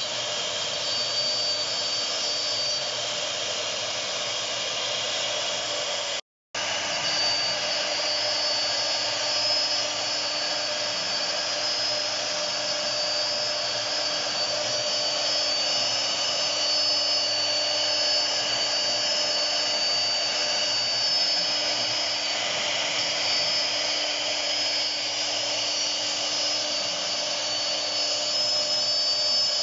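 CNC router spindle whining steadily as its bit cuts a car outline into a fibreboard panel, over the noise of cutting. The sound drops out for a moment about six seconds in.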